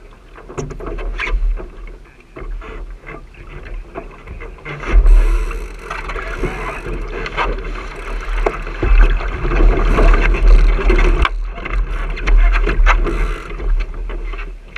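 Water rushing and splashing along the hull of a sailing dinghy under way, with heavy wind buffeting on the microphone and scattered knocks of hull and fittings. It is loudest from about five seconds in and eases off near the end.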